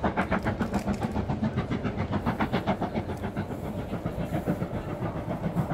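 Steam locomotive chuffing in a steady rhythm of about six or seven exhaust beats a second as it hauls its train, over a low rumble.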